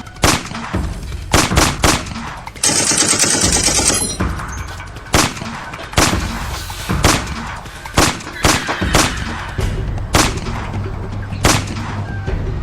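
Gunfire: a dozen or so single shots at uneven intervals, with a rapid burst of automatic fire lasting about a second, near three seconds in.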